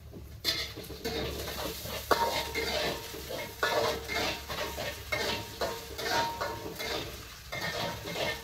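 A utensil scraping and clinking against a frying pan in irregular strokes as garlic and shallots are stir-fried in oil until browned, with a sizzle underneath. There is a sharp clack about two seconds in.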